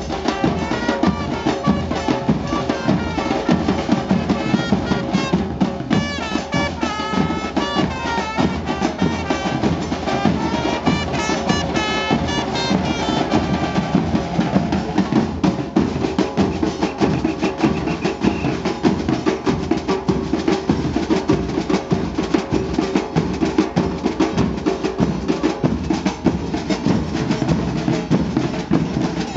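Argentine murga street band: many drums beaten with wooden sticks in a fast, steady rhythm, with trumpets playing a melody over them. The trumpets fade out about halfway through, leaving mostly drumming.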